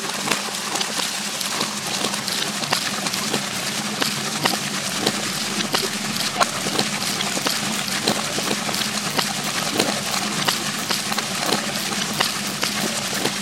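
Homemade water-wheel generator built from bicycle parts, running in a stream. Water rushes and splashes over the wheel's paddles, with a steady low hum and irregular sharp clicks and knocks from the turning wheel and drive, several a second.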